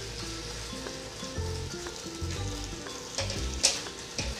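Pork, banana peppers and onion sizzling in a wok, stirred and scraped with a wooden spatula, with a sharper knock of the spatula on the pan about three and a half seconds in.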